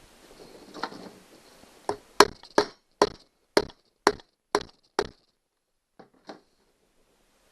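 A run of eight sharp knocks, about two a second, on a plastic push-type clip as it is forced at a rivet hole in a kayak's plastic hull, then two faint ticks. The clip is too big for the hole and won't go in.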